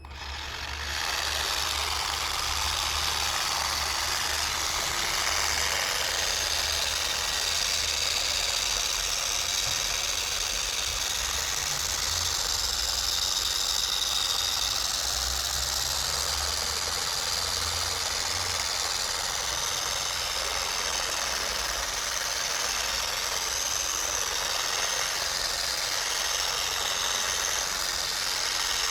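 SPTA 3-inch mini polisher switching on and running steadily, its black foam pad spreading solid ceramic wax.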